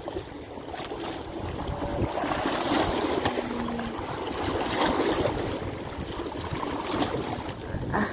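Seawater surging and washing over shoreline rocks, swelling up twice, with wind buffeting the microphone.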